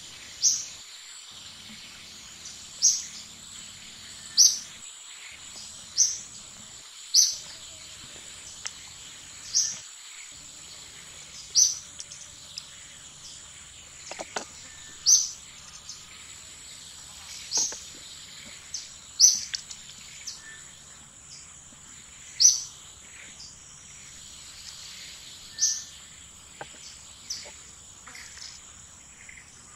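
A bird calling a short, sharp chirp about a dozen times, one every two seconds or so, over a steady high-pitched insect drone. A few faint clicks come in the middle.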